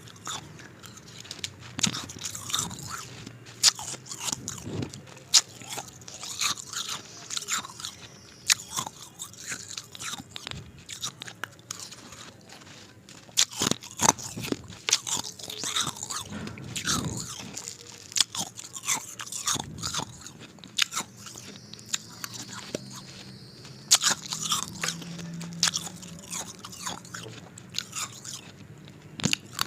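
Ice being bitten and chewed close to the microphone: a long run of sharp, irregular cracks and crunches, with a short lull partway through.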